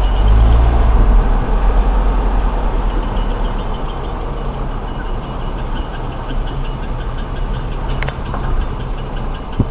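2000 Honda CR-V driving, with steady road and engine rumble and a fast, evenly repeating high-pitched clicking riding on it. The owner first thought the clicking came from the passenger-side wheel and now takes it to come from the rear differential. A single sharp knock sounds near the end.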